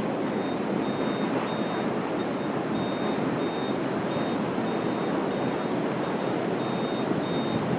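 Strong wind rushing steadily past the microphone as a tornado's winds close in, with a faint high tone cutting in and out.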